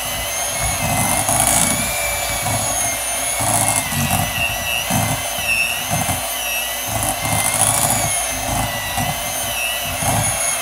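Electric hand mixer running with a steady motor whine as its beaters whip a thick homemade body-lotion mixture in a glass bowl, with an uneven low churning as the beaters work through it.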